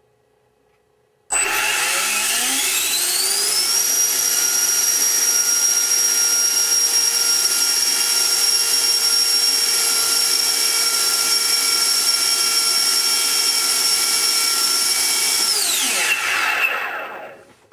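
A 90 mm twelve-blade Change Sun electric ducted fan starts suddenly and spools up with a rising whine, runs steadily for about twelve seconds during a static thrust test, then spools down near the end. The motor timing is set to 7 degrees, reduced from 30 because the current draw seemed high.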